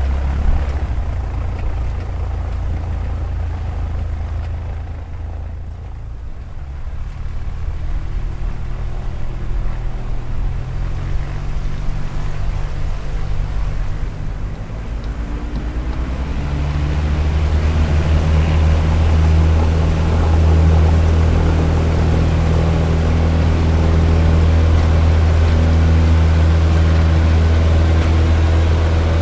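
Cessna 172 piston engine and propeller heard from inside the cabin. For the first half it idles with a low, uneven drone. About halfway through the throttle comes up and the engine holds a loud, steady drone at higher power for the taxi and takeoff run.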